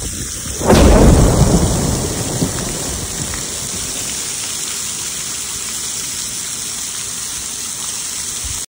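Heavy rain pouring down steadily, with a loud clap of thunder under a second in that rumbles away over the next couple of seconds. The rain cuts off suddenly just before the end.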